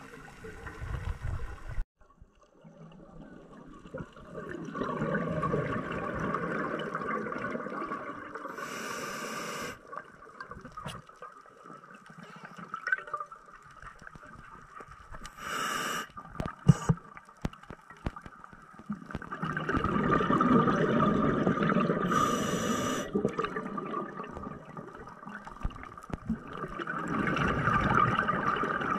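Scuba diver breathing through a regulator underwater: stretches of bubbling as exhaled air escapes, alternating with short high hisses of inhalation, about three breaths in all. A few sharp clicks come a little past the middle.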